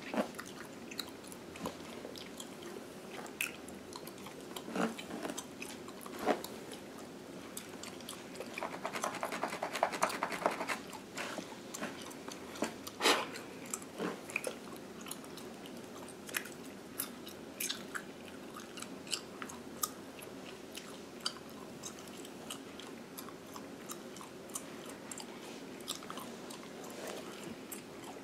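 Gum chewing close to the microphone, with scattered sharp wet smacks, over the scratching of fingernails through a mannequin head's synthetic hair and scalp. About nine seconds in, there are a couple of seconds of denser, rapid scratching.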